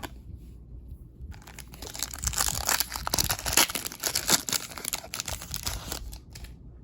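Foil wrapper of a Panini Select basketball card pack being torn open and crinkled, a dense crackling that starts about a second in and dies away near the end.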